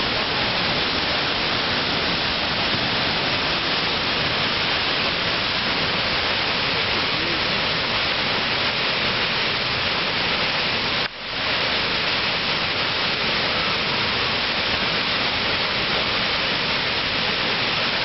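La Fortuna waterfall pouring into its plunge pool: a loud, steady rush of falling and crashing water. It drops out briefly about eleven seconds in, then comes straight back.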